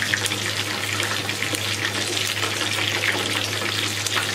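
Batter-coated chicken leg pieces deep-frying in hot oil: a steady, dense crackling sizzle.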